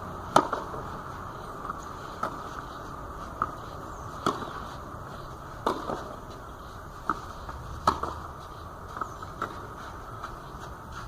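Tennis balls struck by racquets in a rally: sharp, short pops about every one to two seconds, some loud and some fainter.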